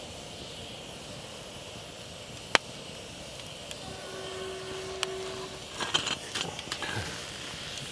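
Wood campfire burning with a steady hiss and a single sharp crackle about two and a half seconds in. Near the end, metal camping pots are lifted off a wire grill grate with a few clinks and knocks.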